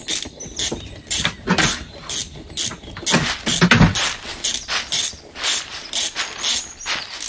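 A ratchet wrench and other metal hand tools clicking and clanking in quick, irregular strokes.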